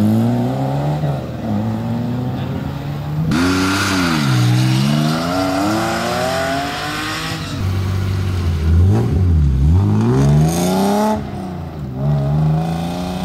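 Historic rally car engines revving hard and accelerating away from a stage start. The engine note climbs and drops several times, with a burst of hissing noise laid over it from about three seconds in.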